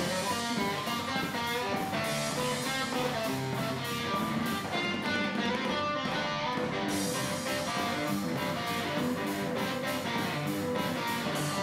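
Electric guitar playing a rock tune over a drum kit made from old oil cans, with steady drum and cymbal strikes. The cymbals drop out briefly in the middle, then come back.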